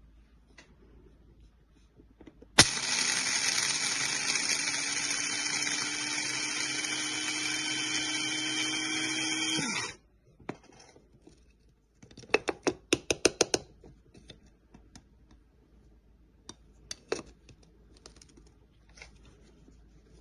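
Amazon Basics electric blade coffee grinder running for about seven seconds: a loud, steady whir with a hum that rises slightly, then cuts off and winds down. A couple of seconds later comes a quick run of about eight sharp taps or clicks.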